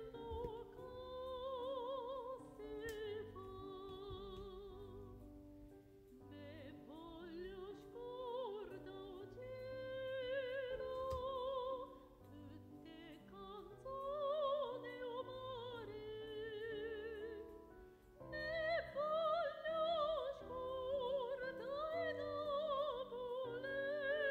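Background music: operatic singing with a wide vibrato, sung in phrases that swell and fall away every few seconds.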